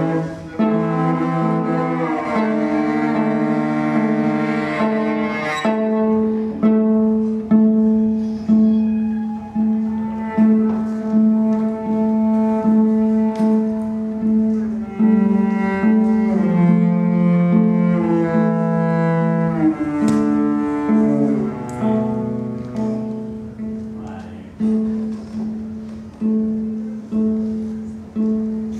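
Solo cello played with the bow: a melody over a steady drone note held low in its range. From about six seconds in it moves in short accented strokes, each starting sharply and dying away.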